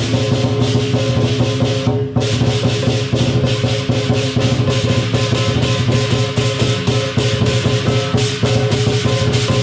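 Lion dance percussion playing a fast, steady beat: a big drum with cymbals and gong. The strokes come several times a second, with a short break about two seconds in.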